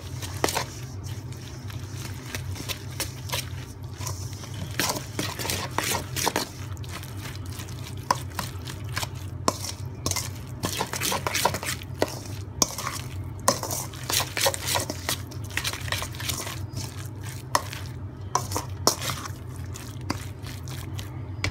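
Metal fork stirring and scraping a wet mix of diced onion, herbs, spices, egg and tomato paste around a stainless steel bowl, with irregular clinks and scrapes of metal on metal. A steady low hum runs underneath.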